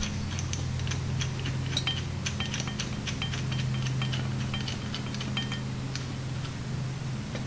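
Light metallic clicks and clinks of nuts being threaded and turned by hand on a bolt through the end of a steel three-piece adjustable rear camber arm, many small ticks scattered throughout. A steady low hum runs underneath.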